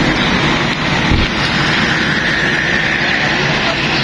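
Steady road traffic noise from motorbikes and other vehicles passing on the road, with a faint whine that rises and fades about halfway through as one passes.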